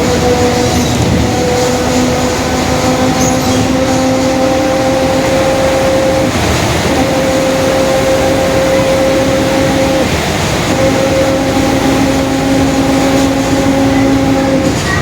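Mercedes-Benz OF-1721 Bluetec 5 bus running at road speed, with a noisy differential whining steadily in two tones over the engine and road noise. The whine creeps slowly up in pitch and drops out briefly a few times before coming back.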